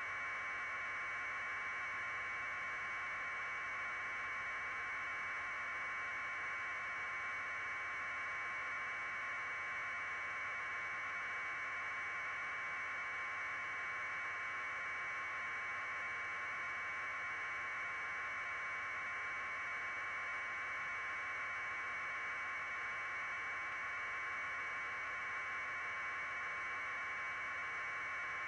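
Steady, unchanging hiss of static on the audio track, with no other sound.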